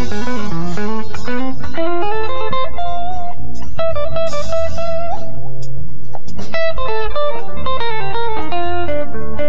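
Live instrumental jazz-fusion: a semi-hollow electric guitar plays quick runs of single notes over electric bass and drums.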